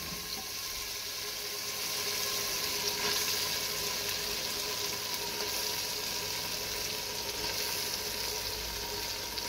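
Tomato-onion masala frying in oil in a clay handi, sizzling steadily as raw boneless chicken cubes are added, a little louder from about two seconds in.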